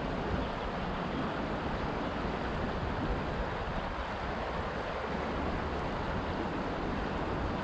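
Shallow river running over rocks in a riffle: a steady, even rush of water.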